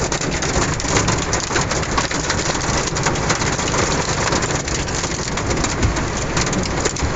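Hail and heavy rain pelting a pickup truck's roof and windshield, heard from inside the cab: a dense, steady downpour with many sharp ticks of stones striking.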